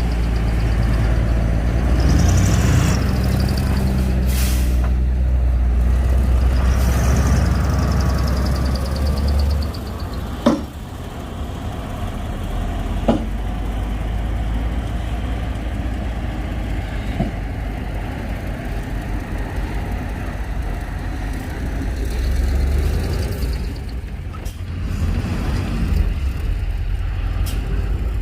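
Heavy diesel earthmoving machinery at work: the bulldozer's and dump truck's engines running with a deep drone that is strong for the first ten seconds, then eases. Two hisses of air come a few seconds in, and sharp metal knocks come about ten and thirteen seconds in.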